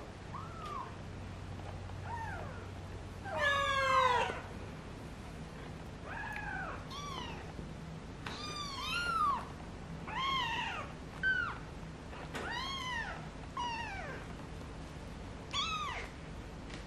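Eighteen-day-old kittens mewing: a string of short, high, rising-and-falling mews, about a dozen in all, with one longer, louder call about three and a half seconds in.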